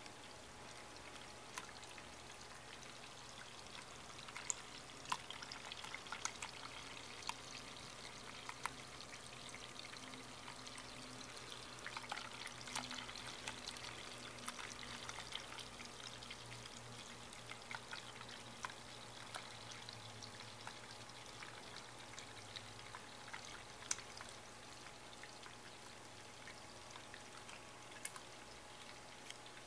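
Tabletop water fountain running: a thin stream pours from a metal spout into a bowl of stones and spills over onto pebbles. It makes a faint, steady trickle dotted with many small splashes and drip clicks.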